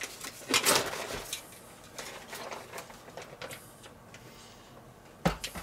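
Plastic vacuum bag of sous-vide cooked ribs crinkling as it is handled and opened, in irregular bursts, with a sharp knock near the end.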